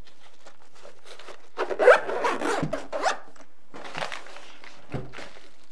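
Zipper on a soft carrying case being zipped shut, a rasping run of about a second and a half, followed by a low thump near the end as the case is set down.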